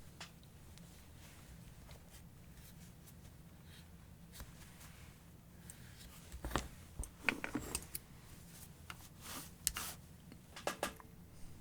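Quiet room tone, then, from about halfway through, a scatter of light clicks and knocks as small metal parts of an angle grinder's gear head are handled and fitted back together.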